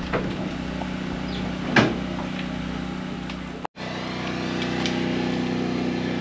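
Skid steer engine running steadily, with a short metallic clank a little under two seconds in. The sound drops out for an instant about halfway through, then the engine carries on.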